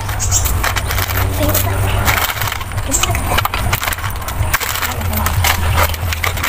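Close crunching and chewing of a crunchy puffed snack, mixed with the crackle of a foil snack bag as a hand reaches into it. A steady low rumble runs underneath.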